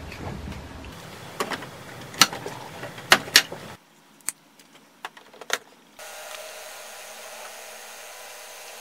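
Sharp plastic clicks and snaps from ink bottles and tank caps being handled on an HP Smart Tank inkjet printer's ink tanks, over a steady hum. A steady whir takes over about six seconds in.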